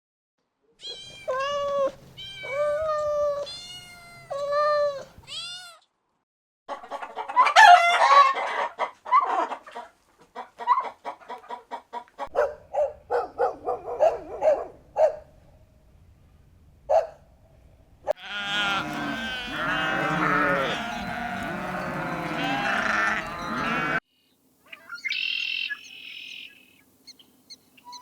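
A string of separate farm-animal calls with short silent gaps between them, chickens and a rooster among them: a few drawn-out pitched calls, then a run of short quick clucks, then a dense chorus of many overlapping calls in the second half, and high chirping near the end.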